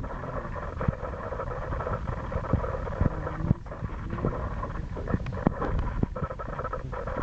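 Cats crunching dry kibble: irregular sharp clicks over a steady background noise.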